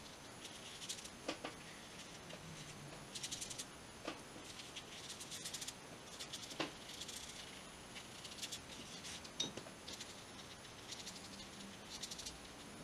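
Paintbrush stroking paint across paper: faint scratchy bristle strokes coming in short runs, with a few soft clicks.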